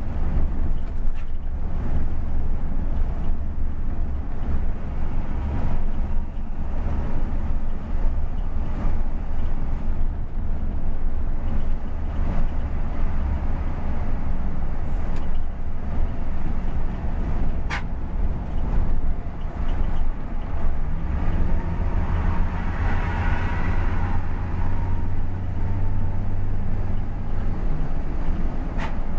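Bus diesel engine running steadily in slow stop-go traffic, heard from inside the bus's cab. It runs louder for about six seconds in the second half, as if pulling under load. A single sharp click comes a little past the middle.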